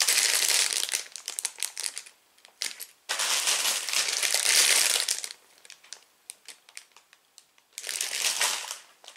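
Plastic Lego parts bags being handled and crinkled, in three spells of crackling with a few small clicks between them.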